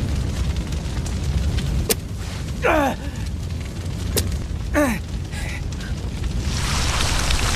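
Action-film sound effects: a steady low rumble, two sharp cracks each followed by a falling shriek, and a rush of noise building near the end, like a blast.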